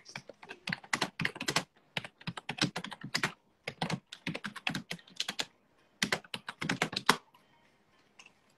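Typing on a keyboard: rapid runs of key clicks with short pauses, stopping about seven seconds in.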